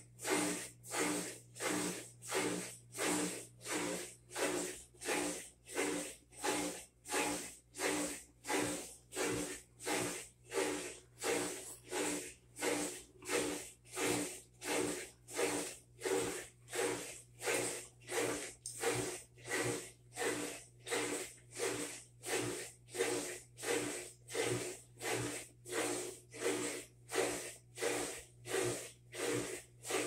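Whirlpool top-load washer (WTW4800XQ2) running its calibration cycle: an even, rhythmic hissing whoosh about one and a half times a second over a steady low motor hum.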